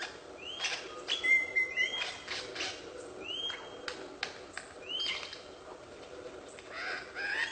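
A bird calling: a short arched note repeated about every one and a half seconds, with sharp clicks between the notes and a brief steady whistle about a second in.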